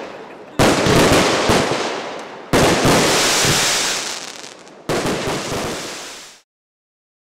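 Aerial fireworks: three loud bursts about two seconds apart, each trailing off in crackling, then the sound cuts off suddenly near the end.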